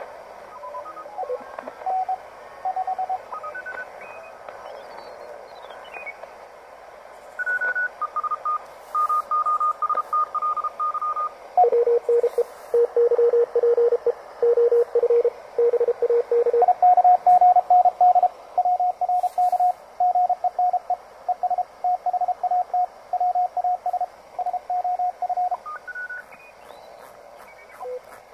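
Receiver audio of a home-built 40-meter direct-conversion QRP transceiver: Morse code signals keyed on and off over band hiss, their beat-note pitch changing as the dial is tuned across the band. From about halfway in, one station stays tuned in and its Morse runs on steadily for about ten seconds.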